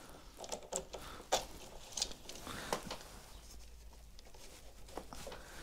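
Scattered sharp clicks and knocks of hands handling a BMW Connected Ride phone cradle on a motorcycle's cockpit mount, the loudest about a second in.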